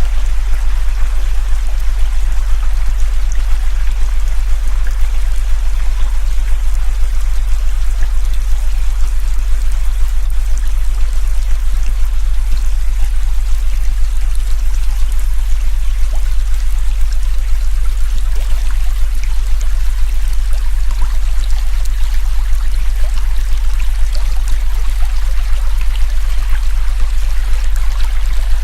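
A steady, deep electronic tone, the loudest thing heard, laid over the even rush of a river's running water.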